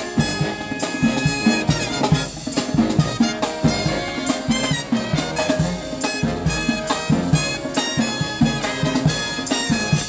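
Marching-style brass band with drums playing an upbeat dance tune live, with a steady beat.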